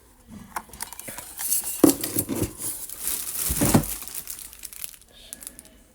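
Packaging crinkling and rustling as parts are handled and unwrapped, with a couple of soft knocks along the way.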